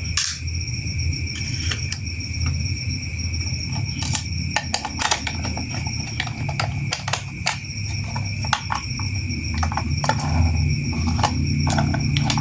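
Irregular sharp plastic clicks and taps from toy train pieces being handled and fitted together, over a steady hum with a faint constant high whine.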